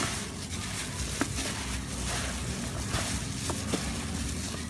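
Thin plastic gloves crinkling and rustling, with soft patting, as hands toss chicken pieces in dry flour. A steady low rumble runs underneath.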